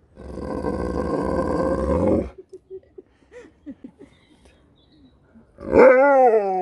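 Husky-type dog "talking": a harsh, grumbling roar of a vocalisation for about two seconds, a few short whines, then near the end a long howl whose pitch wavers up and down.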